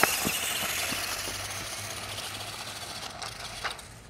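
Small electric toy RC truck driving away across asphalt: its motor whir and tyre noise fade steadily, with a few faint clicks.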